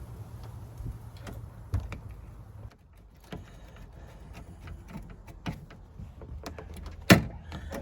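Small clicks and knocks of a Land Rover Discovery's interior door trim panel being fitted and screwed back in place, with one loud sharp knock about seven seconds in.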